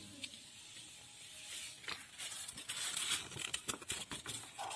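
Paper rustling and crinkling as a folded pop-up card is opened and handled. The rustle starts about a second and a half in, with a scatter of light paper clicks.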